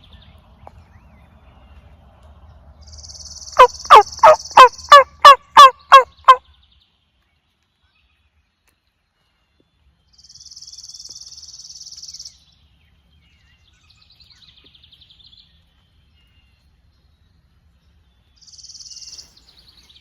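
Turkey call run as a quick series of nine loud, sharp hen yelps, each dropping in pitch, over about three seconds, calling to draw an answer from a gobbler.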